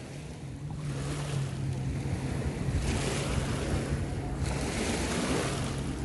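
River water washing and lapping at the shore, with wind buffeting the microphone. A steady low drone of a distant boat engine comes in about a second in and fades out a little past the middle.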